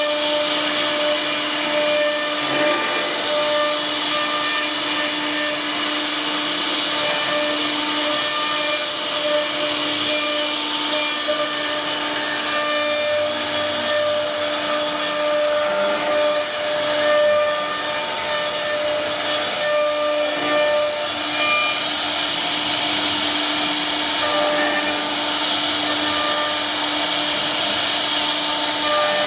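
CNC wood router running and cutting wood: a steady high spindle whine over a loud hiss of cutting and dust extraction, with small dips and swells as the cut changes.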